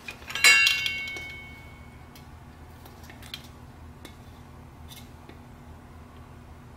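A utensil clinks sharply against a metal container and rings for about a second and a half. A few faint light clicks follow.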